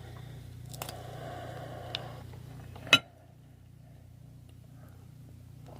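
Crab-leg shells being handled while eating: a brief rustle, then one sharp crack about three seconds in, over a low steady hum.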